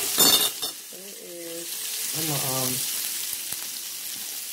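Shrimp and scallops sizzling in butter on a hot electric grill plate, a steady high hiss. A brief loud scrape and crackle of metal tongs comes about a quarter second in, as shrimp are turned.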